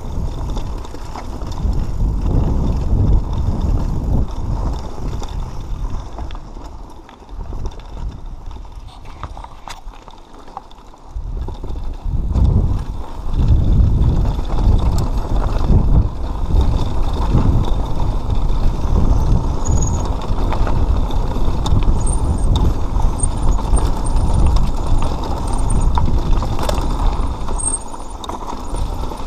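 Mountain bike riding fast down a rocky dirt trail: tyres rumbling and the bike rattling over stones, with wind buffeting the microphone. The rumble eases for a few seconds about a quarter of the way in, then comes back just as strong.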